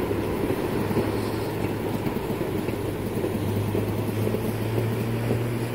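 A steady low vehicle hum over a rushing noise, rising slightly in pitch near the end.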